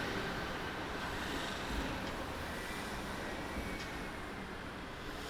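Steady city street background noise: an even hiss over a low rumble, with no distinct events.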